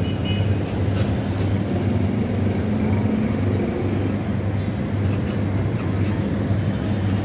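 Metal spatula scraping against a steel ice-cream cold plate in short strokes, about a second in and again around five to six seconds, as ice cream is pushed into rolls. Under it runs a steady low mechanical hum.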